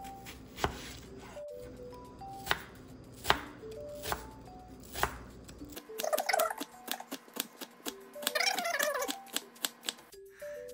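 Chef's knife slicing an onion on a thick wooden chopping board: single cuts, each a sharp knock of the blade on the board, about one a second at first, then quicker runs of slices after about six seconds. Light background music with a simple melody underneath.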